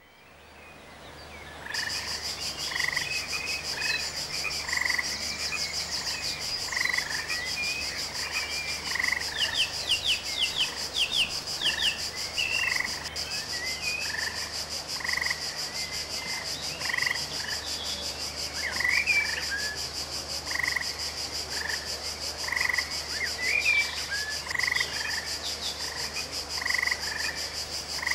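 Green water frogs croaking over and over, a call every second or so, over a steady high shrill buzz. A bird chirps a quick run of falling notes around ten seconds in. The sound fades in over the first two seconds.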